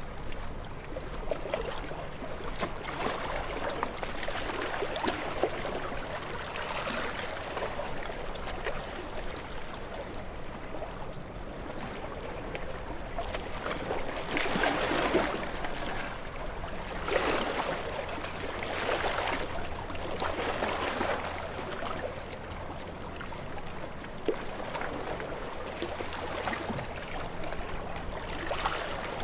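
Waves washing and lapping: a rush of water noise that swells and falls every couple of seconds, with the strongest surges about halfway through.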